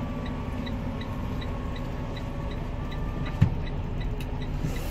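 Semi truck's engine and road noise heard from inside the cab while driving slowly on a snowy highway: a steady low rumble and hum, with a faint regular ticking about three times a second and a single thump about three and a half seconds in.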